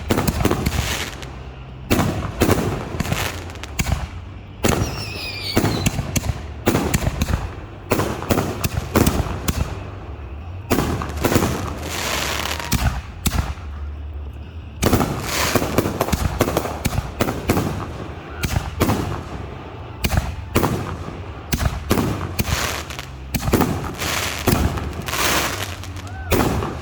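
Fireworks going off in quick succession: many sharp bangs of bursting aerial shells, with stretches of dense crackle. A whistle glides in pitch about five seconds in.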